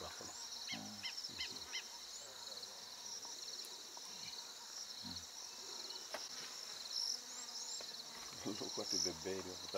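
Steady chorus of insects, a continuous finely pulsing high buzz. Four short high pips come about a second in, and faint voices murmur briefly near the start and again near the end.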